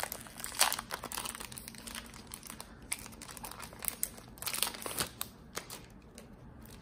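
Plastic wrapping crinkling as a small paper journal is handled and unwrapped by hand, in irregular crackles that thin out over the last second or so.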